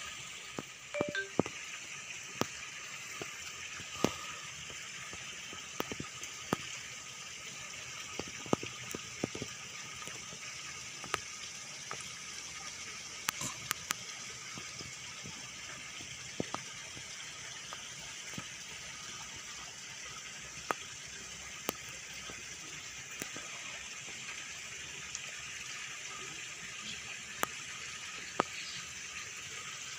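Steady rush of water splashing into a fishing pond, with occasional sharp clicks.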